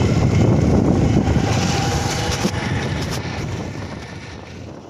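Motorcycle engine running while riding, with wind buffeting the microphone; the sound fades steadily away over the last few seconds.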